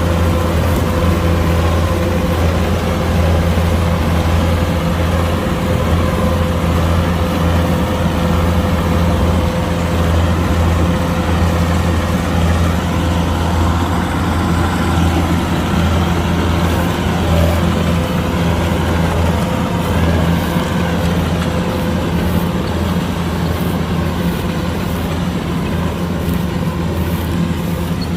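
Kubota DC-105X combine harvester's diesel engine and machinery running steadily while harvesting rice, a low, even drone with a thin steady whine that fades out about halfway through.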